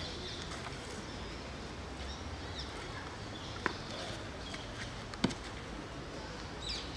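Birds chirping in short high calls over a steady outdoor background, with two sharp clicks about a second and a half apart in the middle.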